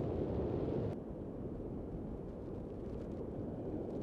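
Wind buffeting the microphone over rough surf breaking on the beach, a steady low rumble. About a second in it drops in level and turns duller.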